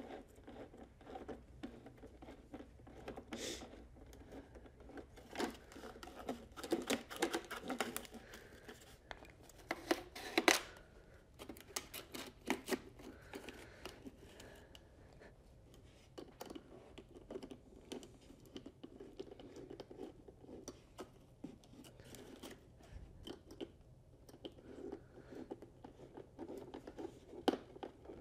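Hands working on a small diesel bunk heater, taking parts off it: scattered clicks, scrapes and rustling, with the loudest clatter about ten seconds in.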